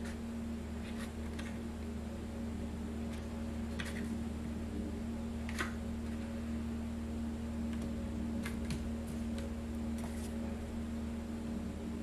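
Steady low electrical or mechanical hum of background noise, with scattered brief light rustles and taps as cardstock is handled and pressed down by hand; the sharpest tap comes about five and a half seconds in.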